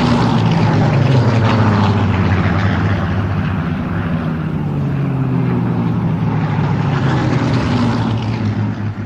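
Piston-engined propeller aircraft droning in flight, the engine pitch sliding slowly down as they pass.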